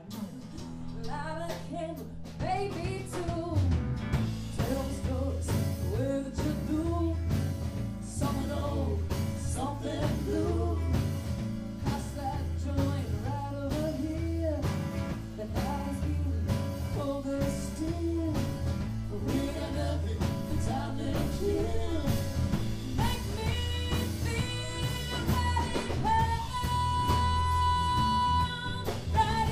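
Live band playing a song: electric bass, electric and acoustic guitars over a steady beat, with a woman singing. A long held high note sounds near the end.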